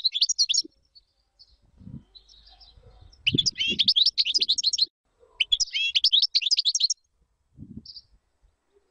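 European goldfinch singing in bursts of rapid, high twittering trills. The first phrase ends within the first second, and after a pause two more phrases of about a second and a half each follow, then a short note near the end.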